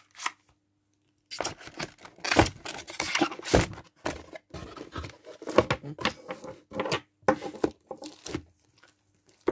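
Handling noise from an airsoft pistol and its magazine being set into a shaped polystyrene foam box insert: irregular rustling, scraping and light knocks. It starts about a second and a half in and dies away near the end.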